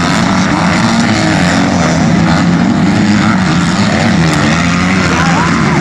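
Several motocross dirt bike engines racing on the track at once, their pitch rising and falling as the riders work the throttle. Near the end one bike revs up and drops back.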